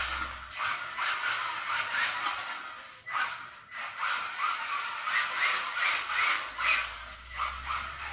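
Kyosho Mini-Z AWD radio-controlled car drifting on tiles: its small electric motor whines up and down in quick throttle bursts, about two a second, with its tyres sliding on the tile, and a brief lull about three seconds in.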